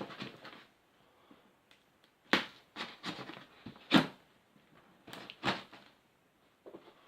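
Knocks and clatters of spider containers and packaging being handled and set down, in a few short bursts with the loudest knock about four seconds in.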